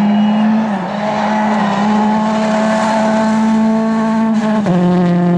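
Rally car engine running hard at high revs. The pitch dips briefly about a second in and drops again near the end, as at gear changes.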